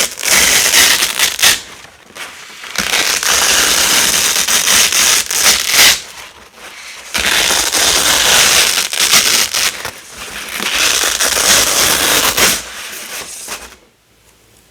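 A large white roll of Velcro hook-and-loop tape being pulled apart in three long crackling rips with short pauses between, the last one fading out near the end.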